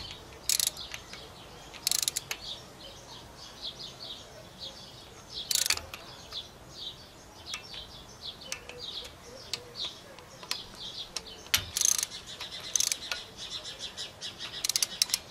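Hand ratchet clicking in several short runs as the timing-chain tensioner bolts are run down before torquing. Small birds chirp throughout.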